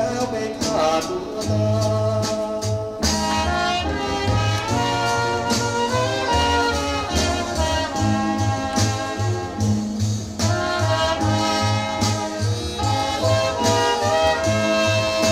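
Music played from a vinyl record on a Thorens TD166 MkII belt-drive turntable, with a steady, pulsing bass line under held melody notes.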